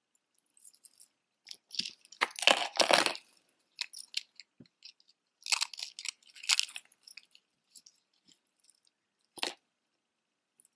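Costume-jewellery necklaces being handled: metal chains and strung beads clinking and rustling against each other in two bursts, about two and six seconds in, with one sharp click near the end.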